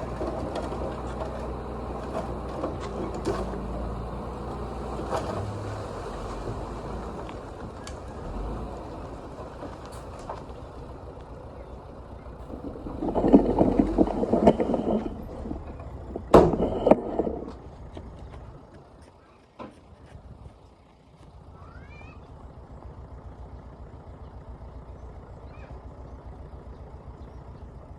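Heavy construction machinery engine running, with scattered clicks and knocks and two louder bursts a little before halfway through. It then drops away briefly before a quieter, steady running resumes.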